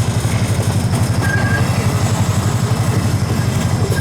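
Small zoo train's engine running steadily with a fast, even chugging pulse, heard from a passenger coach. A brief high squeak comes about a second in.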